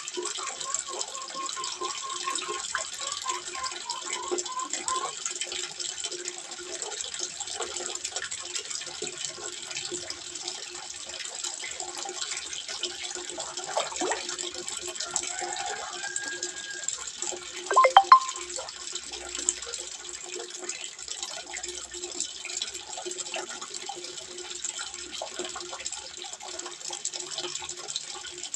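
Water trickling and splashing steadily into a small fish pond. About two-thirds of the way through there is a brief, sharp clatter, the loudest moment.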